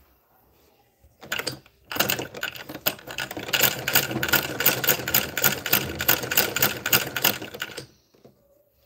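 Sewing machine running in a rapid, even clatter of stitches: a short burst about a second in, then a steady run of about six seconds that stops sharply.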